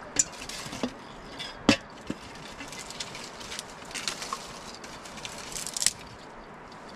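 Scattered sharp clicks and knocks from an open wood cooking fire and its metal pots and kettle being handled, the loudest a little under two seconds in and a quick cluster near the end.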